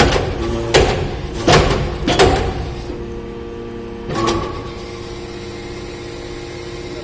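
Hydraulic metal-chip briquetting press running with a steady hum. Several sharp knocks and clanks, four in the first two seconds or so and one about four seconds in, come as compacted briquettes of metal shavings are pushed out of the mould.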